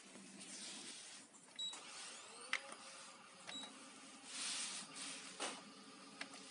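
A Canon imageRUNNER copier's control panel gives two short high beeps a couple of seconds apart as its keys are pressed, with a few sharp clicks of presses. The machine's steady running hum and some swells of hiss sit underneath.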